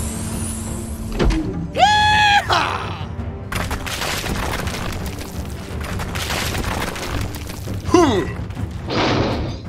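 Background music overlaid with cartoon sound effects: a short, high, voice-like cry about two seconds in, then a long noisy rush, and a falling squeal near the end.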